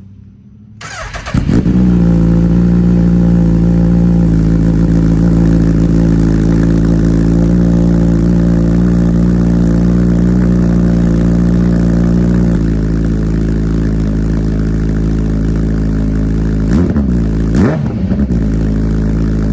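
2022 Suzuki Hayabusa's 1340 cc inline-four through a Brocks megaphone exhaust, cranking and catching about a second in on a cold start, then holding a steady fast idle. About twelve seconds in the idle settles a little lower, and near the end the throttle is blipped twice.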